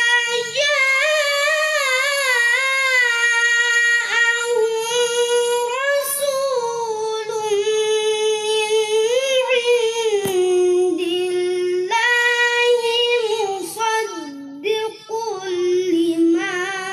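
A boy reciting the Quran in the melodic tilawah style, his high voice holding long, ornamented notes that waver in pitch. The line sinks to a lower pitch about ten seconds in, then climbs again in shorter phrases.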